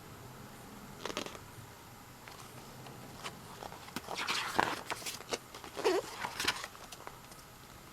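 Album packaging and inserts being handled: paper and plastic rustling with light clicks and taps. The handling is busiest from about four to seven seconds in.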